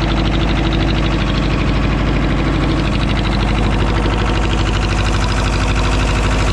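Boat engine running steadily, loud and close, with a fast even beat.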